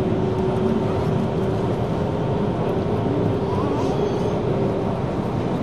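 Running noise of an Osaka Municipal Subway 66 series train at speed, heard from inside the carriage: a steady rumble of wheels on rail with a steady hum that weakens about five seconds in.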